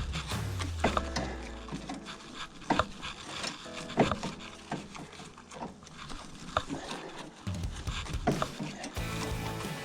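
A handful of sharp, separate knocks and clunks at uneven intervals, with some rubbing in between: metal parts and tools being handled during hands-on work on a motorcycle.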